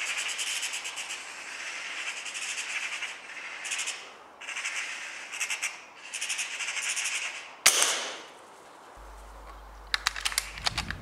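Magpie chattering in harsh, rattling bursts with short gaps between them, then a single sharp air-rifle shot about three-quarters of the way in, followed by a few light clicks near the end.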